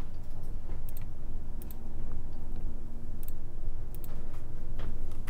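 Computer mouse clicking a number of times at irregular intervals, some clicks in quick pairs, as drawing styles are picked from a software dropdown, over a steady low hum.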